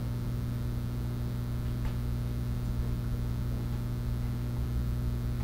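Steady electrical mains hum at about 60 Hz and its overtones, with one faint click about two seconds in.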